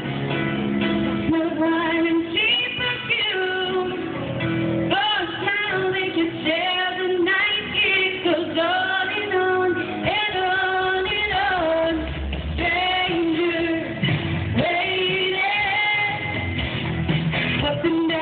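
A woman singing solo into a microphone over instrumental backing, holding long notes with a wavering vibrato.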